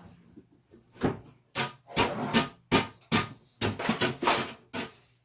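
Wooden boards knocking and scraping together as they are handled: a run of short, sharp knocks and scrapes, about two a second.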